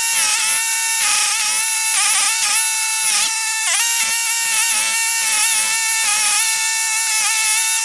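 Toro STX-38 stump grinder running hard, its spinning cutter wheel grinding into a tree stump. A loud, steady mechanical whine that dips briefly in pitch now and then.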